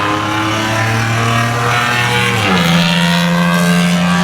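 Infiniti car engine running with its entire exhaust system removed, very loud and raw as it drives. The engine note holds steady, then dips and settles at a higher pitch about two and a half seconds in.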